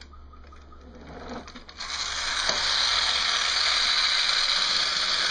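Small electric motor and plastic reduction gears of a homemade wooden platform car, powered by a cell-phone battery, start up about two seconds in and run steadily with a whirr.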